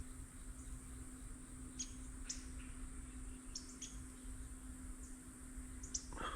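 Creekside ambience: a steady high-pitched insect drone with a few short, sharp chirps scattered through it.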